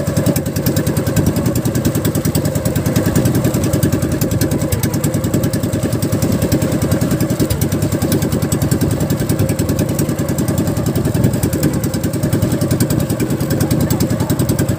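Small motorized boat engine running steadily, with a fast, even firing rhythm.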